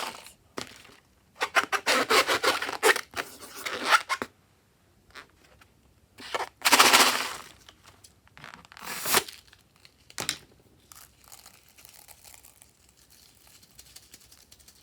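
Slime being handled: crackly, tearing bursts of stretched slime, loudest about a third of the way through, with scattered smaller crackles and a click afterwards.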